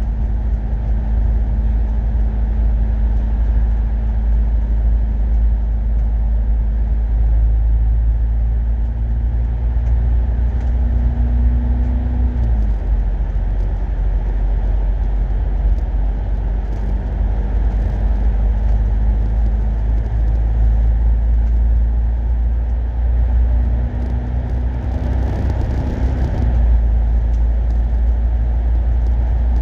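Diesel bus running on the road: a steady engine drone over heavy low road rumble. Twice, about twelve seconds in and again near twenty-six seconds, the engine note climbs a little and then drops.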